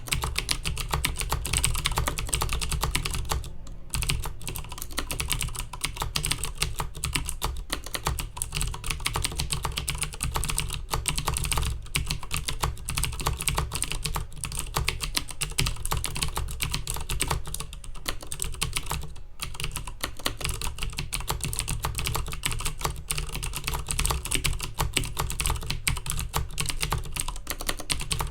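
Continuous fast typing on a Filco Majestouch Minila Air mechanical keyboard with clicky Cherry MX Blue switches: a dense stream of sharp key clicks, pausing briefly a few times.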